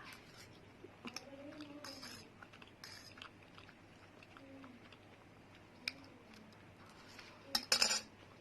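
A person eating spicy instant noodles: quiet chewing with small mouth clicks and a few short breathy noises, the loudest near the end.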